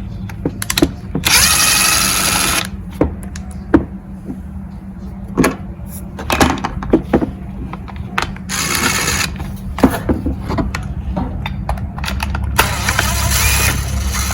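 Cordless power driver with a T25 Torx bit backing out screws from a Stihl FS55R string trimmer, running in three short spells: about a second in, around eight and a half seconds in, and again from about twelve and a half seconds. Clicks and knocks of handling come between the spells.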